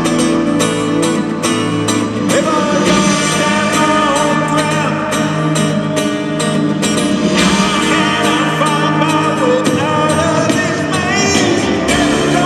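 Live rock band playing loudly in an arena, with guitar and sung vocals over sustained instruments.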